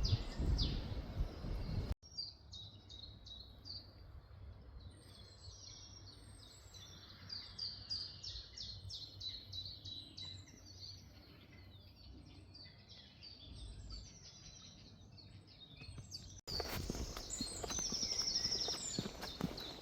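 Songbirds singing: quick runs of high chirping notes and trills, several birds at once. The birdsong comes in on a sudden cut about two seconds in, and another cut near the end brings back louder walking noise.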